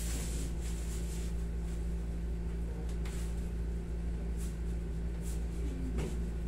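Steady low hum of a room air conditioner, with a few faint soft brushing sounds about halfway through and near the end.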